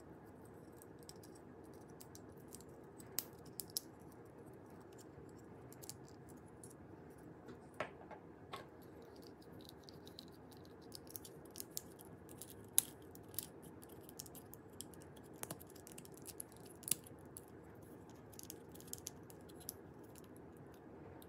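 Scattered, irregular clicks, taps and light scrapes of hard plastic as the hinged parts of 1990s McDonald's Changeables transforming toys are twisted, folded and snapped into place, over a faint steady background hiss.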